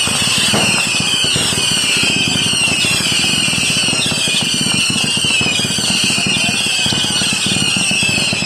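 Whistling fireworks: a high, shrill whistle wavering in pitch, with several whistles layered on each other, over a dense, continuous crackle.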